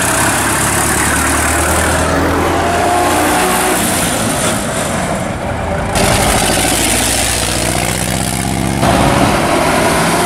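Engines of antique cars running as they drive past one after another. The sound changes abruptly a few times as one car's pass gives way to the next.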